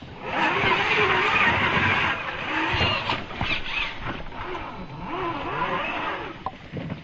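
Axial SCX10 II electric RC crawler driving, its motor and geared drivetrain whining up and down in pitch with the throttle, over a rushing noise that is loudest in the first couple of seconds.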